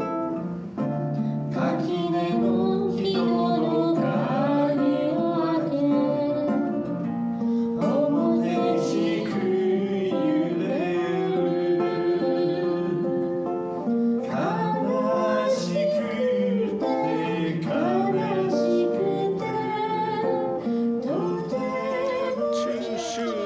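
A man singing a folk song to his own acoustic guitar accompaniment.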